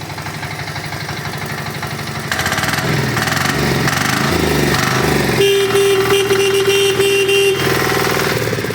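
A 7.5 hp single-cylinder diesel tiller engine running steadily, then revving up about two seconds in as the automatic clutch takes up drive. For about two seconds in the second half, a steady high whine sounds over the engine before the engine eases back near the end.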